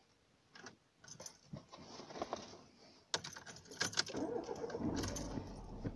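Car keys jangling and clicking at the ignition, then a vehicle engine starting about three seconds in and running with a steady low hum.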